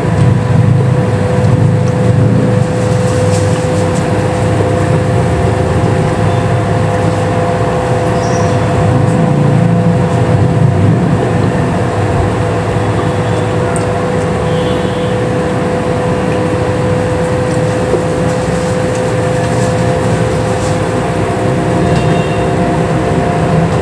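A steady, loud machine hum with one constant tone, unchanging throughout, and a few faint crunches of raw papaya being chewed.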